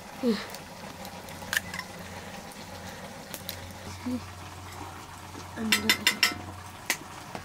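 Scattered light clicks and taps, with a quick run of about five clicks near the end, over a steady low hum; a few brief voice sounds.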